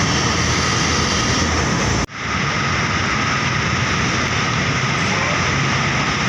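Steady roar of heavy road traffic, buses and trucks passing close by, with a sudden brief dropout about two seconds in.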